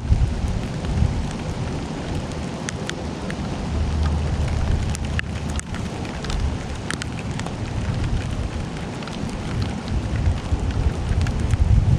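Steady rain falling, with many scattered drops ticking close by over a low, uneven rumble.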